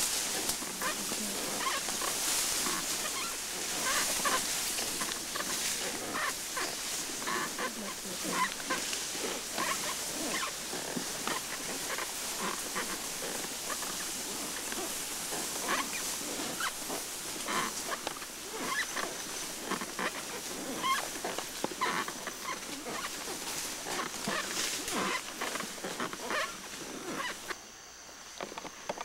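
Tall grass and brush rustling and crackling as a riding elephant pushes through it, with many small snaps and swishes.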